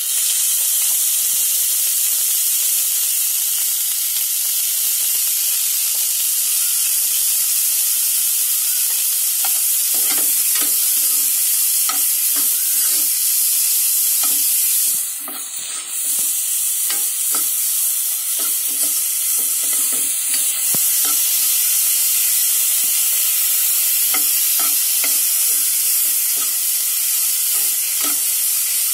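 Chopped carrot, beans, sweet corn and onion frying in butter in a pan with a steady sizzle, while a metal spoon stirs and scrapes through them. The scraping comes in repeated strokes from about a third of the way in.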